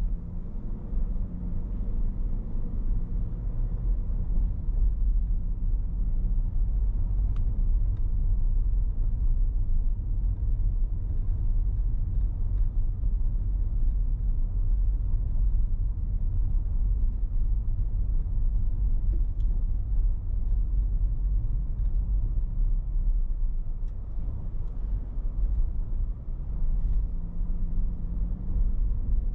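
Car driving slowly along a street: a steady deep rumble of engine and road noise, with the engine note rising as the car speeds up just after the start and again near the end.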